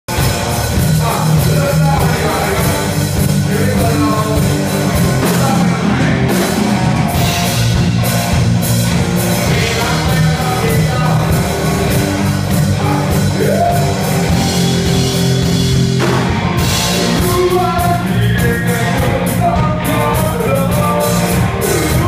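A rock band playing live: electric guitars and drum kit, with a singer singing into a microphone over the top.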